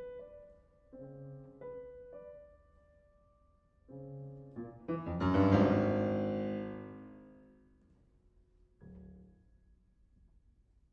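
Solo piano in a classical recital: a few quiet, separate chords, then a few quick notes into a loud chord about five seconds in that rings and slowly dies away. A last soft chord comes near the end before the piano goes silent.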